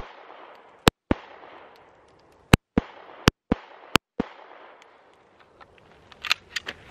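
Sig Sauer P320 Compact 9mm pistol firing four shots: one about a second in, then three in quicker succession between about 2.5 and 4 seconds. Each sharp report is followed a quarter second later by a fainter echo.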